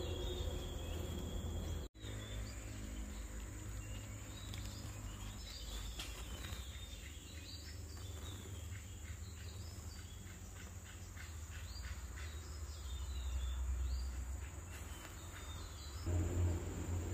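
Outdoor ambience: a steady high-pitched insect drone with scattered short bird chirps, over a low rumble on the microphone. The sound drops out for an instant about two seconds in.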